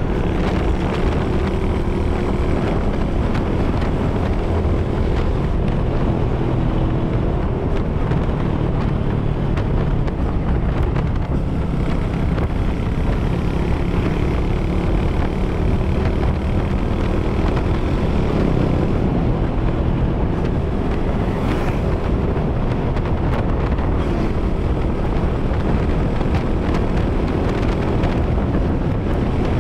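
A vehicle's engine drones steadily while on the move, with wind buffeting the microphone. The engine pitch drifts a little up and down as the speed changes.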